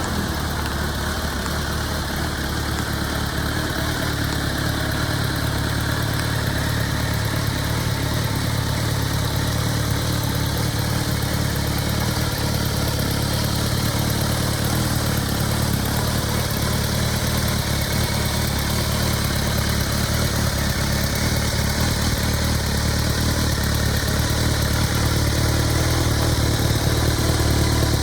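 Kawasaki ZRX1200 DAEG's inline-four engine idling steadily through its exhaust, growing gradually a little louder.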